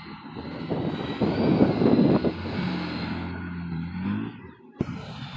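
Honda Gold Wing motorcycle engine running at low, steady parade speed, with a swell of rushing noise about a second in. The engine pitch rises slightly near the end, followed by a short dip and a sharp click.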